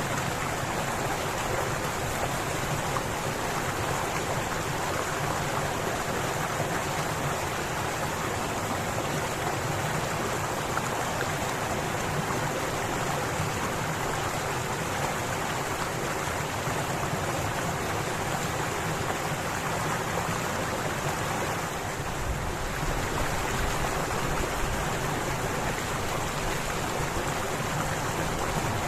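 Strong wind rushing steadily through pine trees. A little more low rumble comes in from about 22 seconds in, as a gust reaches the microphone.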